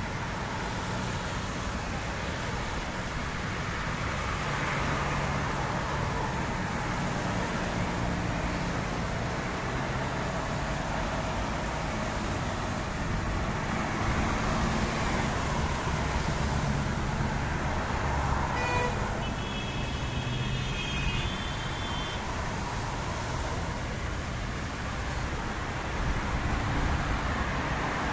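Steady road traffic on wet pavement: tyre hiss and engine hum of passing cars, vans and buses. A brief high-pitched tone sounds about two-thirds of the way through.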